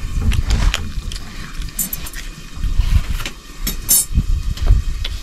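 Wind rumbling on the microphone, with scattered sharp clicks and knocks, the loudest about two and four seconds in.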